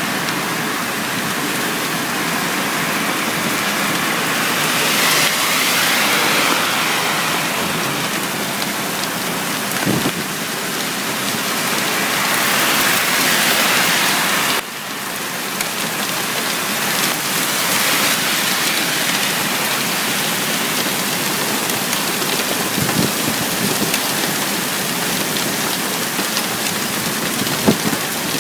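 Heavy rain pouring down in a steady hiss, swelling louder twice and dropping suddenly in level about halfway through.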